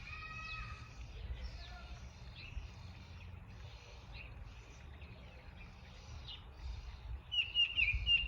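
Several songbirds calling: a short call with stacked tones right at the start, then scattered thin high chirps, with a burst of louder, sharper chirps near the end. A steady low rumble runs underneath.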